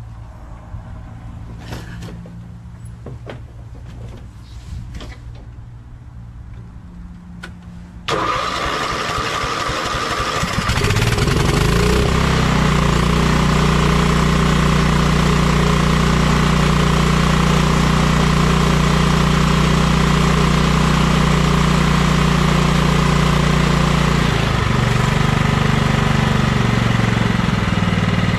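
A Kohler lawn tractor engine with a newly replaced carburetor starts on choke. After a few light clicks it bursts into sound about eight seconds in and rises to a steady run by about twelve seconds. Its note shifts about twenty-four seconds in and then runs steadily again, with no surging.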